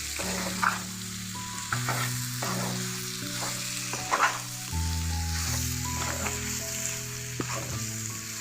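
Chicken pieces sizzling in a hot pan with onions and spices while being stirred, a utensil scraping the pan a few times.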